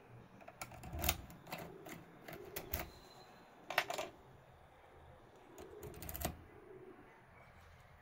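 Irregular sharp metallic clicks and taps of a locksmith's dial-type pick tool being handled and slid into a Mottura C28+ euro cylinder held in a vise.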